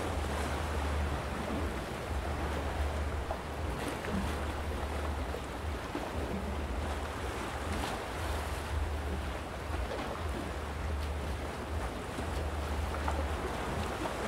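Calm sea lapping and washing against rocks, with small splashes. Gusts of wind buffet the microphone, coming and going as a low rumble.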